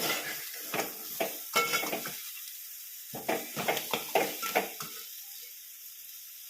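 Crabs being stir-fried in hot masala and oil: a stirring utensil scrapes and knocks against the pan in two runs of strokes over a steady sizzle. The stirring stops about five seconds in, leaving the fainter sizzle.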